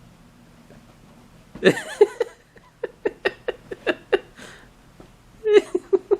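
A toddler babbling: quick runs of short, high, repeated syllables. The first run starts about a second and a half in, and another comes near the end.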